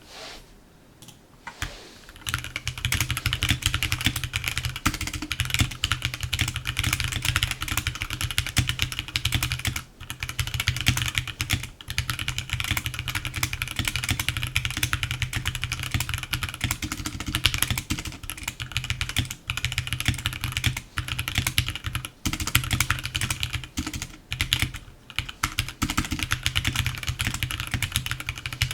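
Fast, continuous typing on a HyperX Alloy 60 mechanical keyboard: a dense patter of key clicks and keystrokes bottoming out. It starts about two seconds in and has a few brief pauses.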